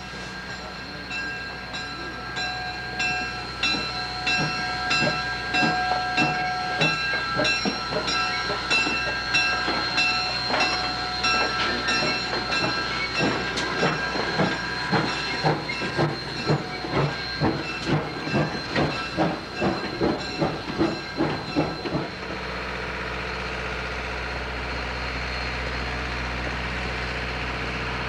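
US Army 2-8-0 steam locomotive No. 610 running around its train, its exhaust chuffing in an even beat that quickens from a little over one to about two chuffs a second, with hiss and steady ringing tones over it. About three-quarters of the way through the chuffing cuts off and a steady low rumble takes over.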